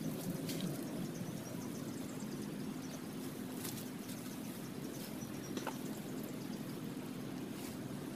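Steady low background hum, with a few faint rustles and clicks as a thin stick and fishing line are handled among paddy rice plants.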